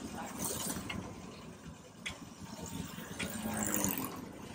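Sliced chips deep-frying in a large iron kadai of hot oil, the oil sizzling and bubbling steadily, with a few light clicks, about two and three seconds in.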